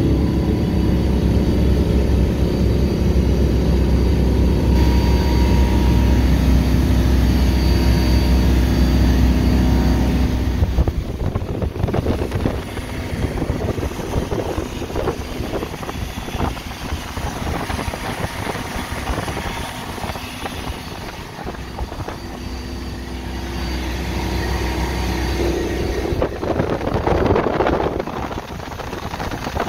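Ebbtide 2600 SL bow rider's sterndrive engine running steadily at cruising speed under way. About eleven seconds in the engine drops back under wind buffeting the microphone and the rush of water off the hull.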